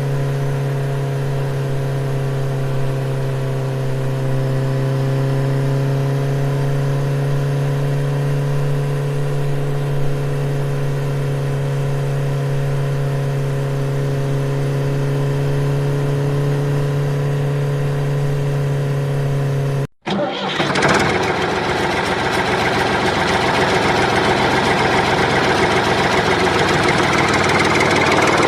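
A vehicle engine running with a steady hum for about twenty seconds, then a sudden cut to a louder, rougher, noisier engine sound that builds slightly toward the end.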